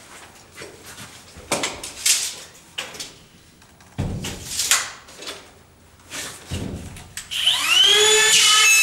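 Power drill used as a screw gun on drywall starts up about seven seconds in, its whine rising quickly and then running steady. Before that come scattered knocks and scrapes, with a thump about four seconds in.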